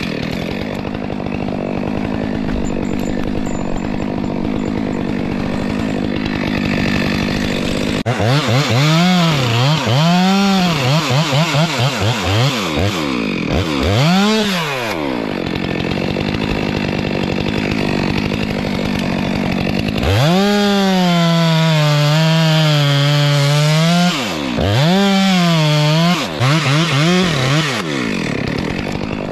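Two-stroke chainsaw cutting through a tree trunk, its engine running steadily under load. Its pitch rises and falls repeatedly as the throttle is worked, and it is held at high revs for a few seconds about two thirds of the way through.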